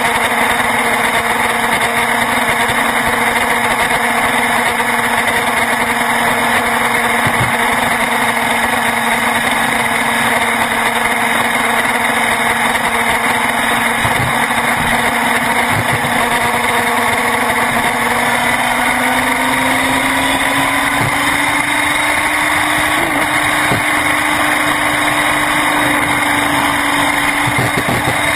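Motorcycle engine running at a steady cruise under loud wind and road rush. Its pitch climbs gently about two-thirds of the way through as the bike speeds up.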